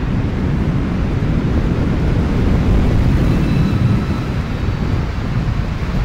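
Car driving at speed: a steady low rumble of tyre and wind noise, a little louder a few seconds in, with a faint thin whine.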